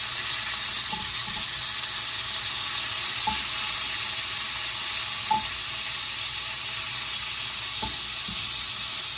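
Frozen tater tots frying in hot rendered pancetta fat, avocado oil and butter: a steady, even sizzle, lively from the water the frozen tots bring into the oil. A few faint short ticks come through it.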